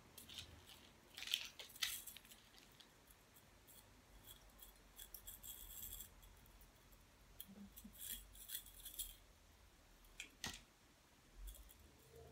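Faint, irregular crisp clicks and snips in short clusters, from small objects being handled close by.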